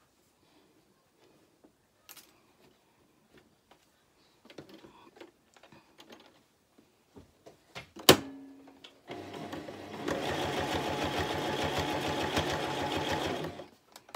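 Electric Toyota sewing machine stitching through a thick seam of four layers of jersey. It starts slowly, picks up speed about a second later, runs steadily for a few seconds and stops. Before it starts there is soft fabric handling and one sharp click.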